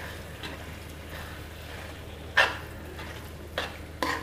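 A spatula stirring a thick grated bottle-gourd mixture in a steel kadhai, scraping and knocking on the pan's metal: one sharp scrape a little over two seconds in, two lighter ones near the end, over a faint steady hum.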